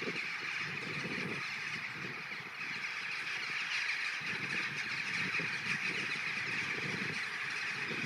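A large mixed flock of rooks and jackdaws calling in flight, a dense, unbroken din of many overlapping calls.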